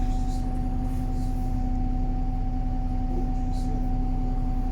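Wright Pulsar 2 single-deck bus's Cummins ISB diesel engine running steadily, a low rumble with a constant hum over it, with a couple of faint light rattles.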